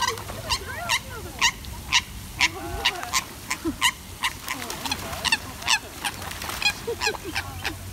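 Eurasian coots fighting on the water: a rapid series of short, sharp calls, two or three a second, with splashing.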